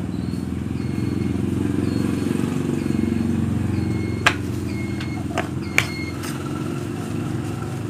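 A steady low engine hum runs throughout, with two sharp knocks about four and six seconds in as the phone on the table is handled.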